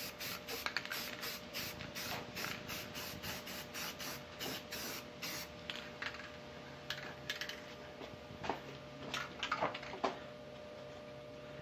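White spray paint hissing from the nozzle in a rapid series of short, evenly spaced bursts for about five and a half seconds while an outboard's lower unit is coated, followed by a few scattered clicks. A faint steady hum runs underneath.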